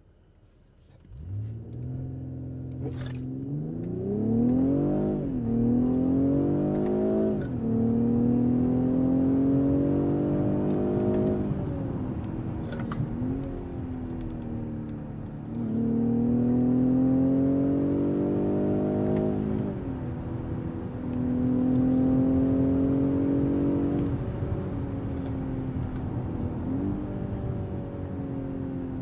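BMW X5 G05 engine heard from inside the cabin, accelerating hard in manual mode. The engine note climbs in pitch and drops back several times as the gearbox shifts up through the gears.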